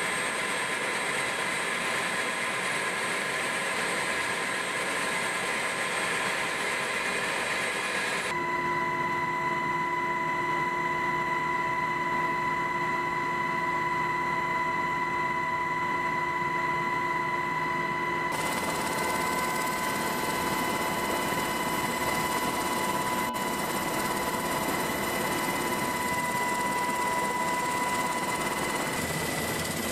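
Military helicopter heard from inside the cabin in flight: steady turbine and rotor noise with a steady high whine. The sound changes abruptly about 8 and 18 seconds in.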